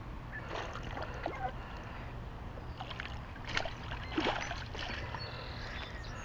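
A baitcasting reel being handled, giving scattered clicks and light knocks, the sharpest about three and a half and four seconds in, over a steady low rumble.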